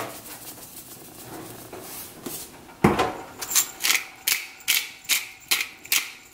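Black pepper grinder being twisted over the pan: a sharp start about three seconds in, then short rasping grinding strokes, about three a second.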